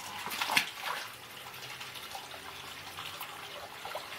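Garden pond water trickling and bubbling steadily from a small fountain, with one sharp splash about half a second in as a pond turtle drops off the edge stone into the water.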